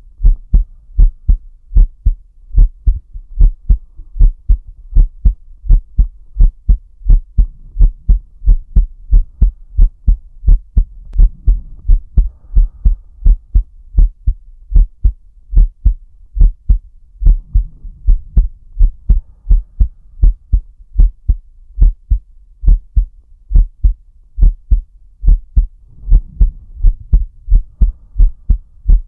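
A human heartbeat heard up close, its lub-dub pairs of low thumps beating steadily a little over once a second.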